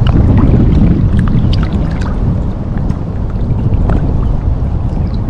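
Choppy river water lapping and sloshing around a camera held at the surface: a heavy low rumble scattered with small splashes and drips, easing a little after about two seconds.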